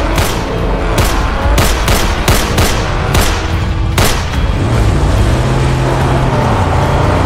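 Dubbed film sound effects: a string of about eight gunshots at uneven intervals over a low engine rumble for the first four seconds. Then a vehicle engine takes over, its pitch rising and falling as it drives.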